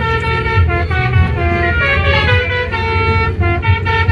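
Telolet horn of a Gumarang intercity bus playing a quick melody of short, stepped notes, over the low rumble of the bus.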